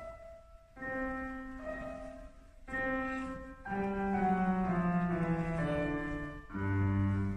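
Grand piano playing the first bars of a simple piece: a few single notes, then fuller chords from about four seconds in, and after a short break near the end, low bass notes come in.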